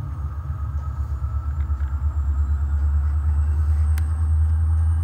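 HO scale CSX SD70MAC model locomotive running by with a steady low rumble that grows louder, over a faint high whine slowly rising in pitch. There is one sharp click about four seconds in.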